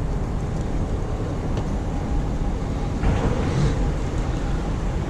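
Steady low rumble of a motor vehicle running, with a slight swell about three seconds in.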